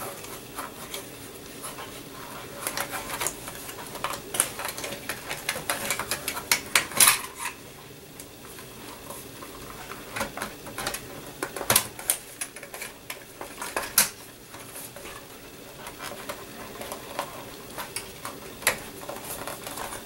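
A hard drive in its plastic carrier being worked into the drive bay of a Dell desktop case: irregular clicks, taps and scrapes of plastic against sheet metal, with a few sharper clicks scattered through.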